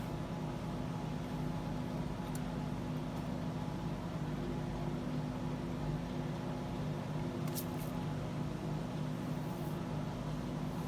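Whole-house fan running steadily with a low hum and an even pulsing throb. Two brief light clicks come through, one about two seconds in and one past the middle.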